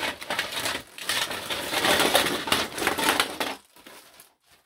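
A heap of toy transport trucks, diecast metal and plastic, clattering and knocking together as they are tipped out of a bag. It is a dense run of rattles for about three and a half seconds, loudest in the middle, and then it thins to a few scattered clicks.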